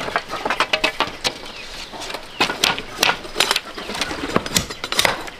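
Machete striking and splitting a bamboo pole held upright on a wooden chopping block: an irregular run of sharp cracks and knocks, several a second.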